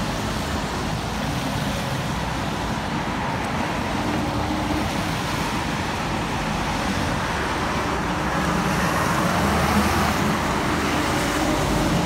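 Steady road traffic noise with a low engine hum, growing a little louder in the second half.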